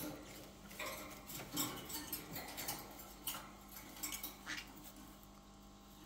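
Pyrrhura conures clambering about a wire cage: an irregular run of clicks, taps and scratches from claws and beaks on the bars, wooden perches and hanging toys.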